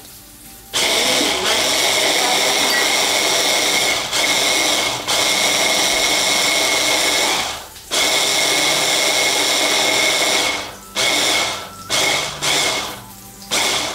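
Breville stick blender with its chopper bowl attachment running, chopping parsley, breadcrumbs and garlic in oil. It starts under a second in and runs for about seven seconds, stops briefly, runs again for about three seconds, then gives several short pulses near the end.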